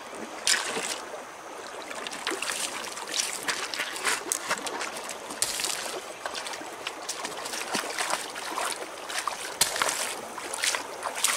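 Shallow creek water trickling over a gravel bed, broken by many short splashes and clicks of stones as a child throws rocks and wades in, with a sharp stone knock about half a second in.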